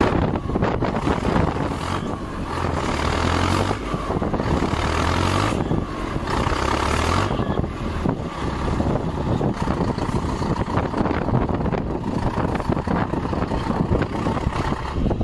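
Diesel engines of a crawler tractor and a stuck crane truck running hard under load as the tractor hauls the truck out of deep snow on a tow cable. A deeper engine drone stands out for a few seconds near the start.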